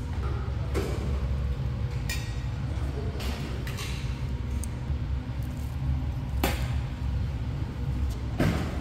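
Stainless steel serving tongs clinking against a compartment food tray and serving dishes, about half a dozen sharp clinks spread a second or more apart, over a steady low background rumble.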